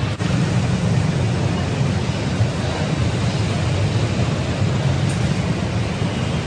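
Bus engine and road noise, a steady low rumble.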